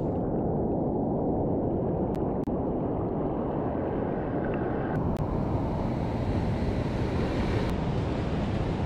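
Sea surf washing and breaking in a steady rush, with wind rumbling on the microphone.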